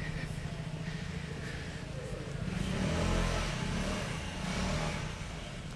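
A motor vehicle passing on the street: its engine and tyre noise swell to a peak about three seconds in, then fade, over a steady low street rumble.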